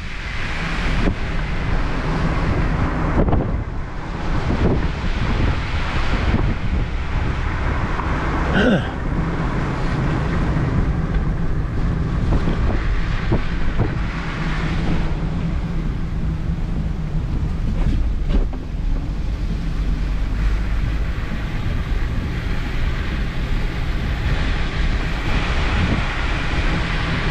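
Storm wind gusting and heavy rain, heard from inside a moving car over its engine and road noise, with wind buffeting the microphone.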